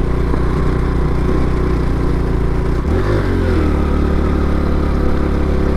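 Honda Pop 110i's small single-cylinder four-stroke engine running under load as it climbs a loose dirt slope. The engine note dips about three seconds in, then holds steady.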